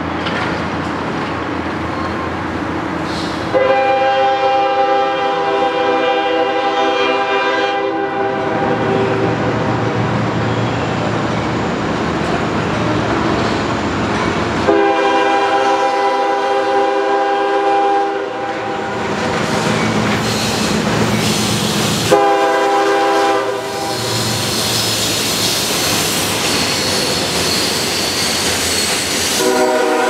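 A CSX ES44DC diesel locomotive sounding its multi-tone air horn in the grade-crossing pattern: two long blasts, a short one, and a final long one starting near the end. Under the horn are the steady running of the locomotive and the clatter and hiss of loaded rock hopper cars rolling past on the curve.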